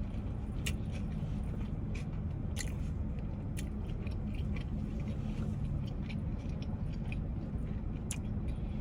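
Someone chewing a grinder sandwich, with scattered short mouth clicks over a steady low hum.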